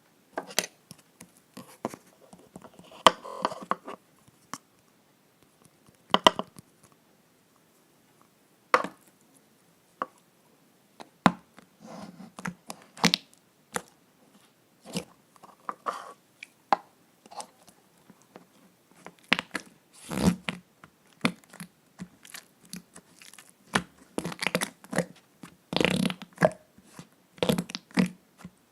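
Slime being squeezed and pressed by hand, making irregular sticky clicks, pops and squelching crackles, with a few brief quiet pauses.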